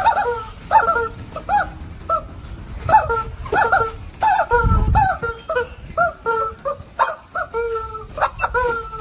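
Rubber screaming-chicken toys being squeezed, giving a rapid series of short squawks, about two a second, with a few longer held squeals near the end.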